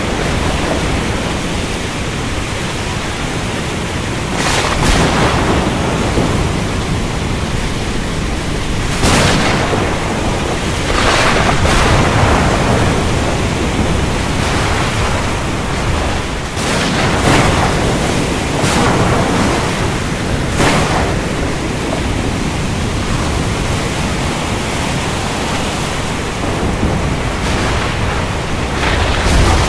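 Thunderstorm: a steady hiss of heavy rain under a low rumble, broken by about seven sharp thunder cracks, the loudest near five, nine, twelve, seventeen and twenty-one seconds in and just before the end.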